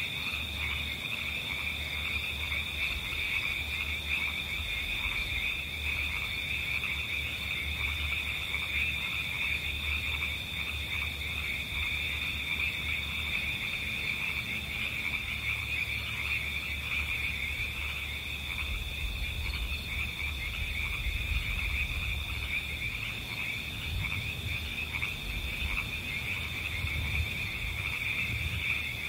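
A dense, steady chorus of many calling animals, high-pitched and unbroken, with a fine rapid pulsing.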